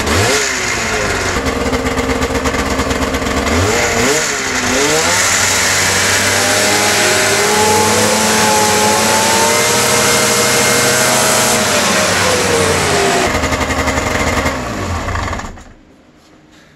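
Arctic Cat ZR 600 EFI snowmobile's two-stroke twin engine revved under near-full throttle, bogging at high rpm: a fault the owner traces to power valves installed backwards. The revs dip and climb twice, then are held high for several seconds before falling away, and the engine sound drops off about a second before the end.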